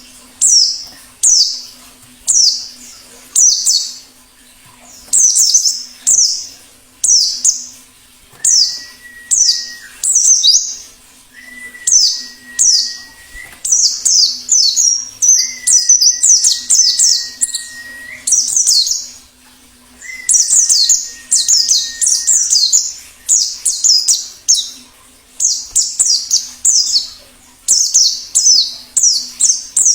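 Wild white-eye (pleci) calling: short, high, downward-sweeping chirps, from about one a second to quick runs of several. Four long, level whistles sound lower down in the middle.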